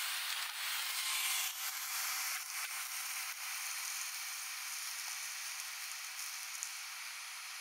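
2008 GMC Sierra 2500HD diesel pickup towing a fifth-wheel camper, passing close and pulling away: a steady rushing hiss that is loudest at first and slowly fades.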